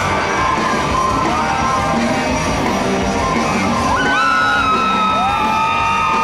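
Loud live band music with a crowd yelling and whooping along. Long held high notes glide in from about four seconds in.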